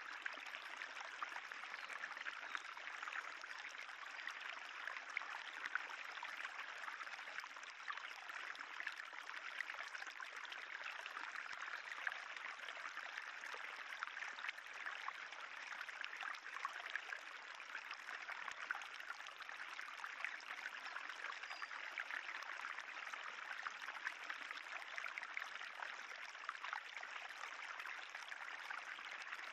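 Shallow spring water trickling steadily along a raised calcareous tufa channel, a faint, even babble of many small splashes.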